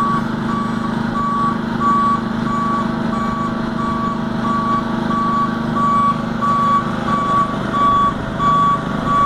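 Boom lift's motion alarm beeping: a steady series of evenly spaced, high single-tone beeps, over the steady drone of an engine running.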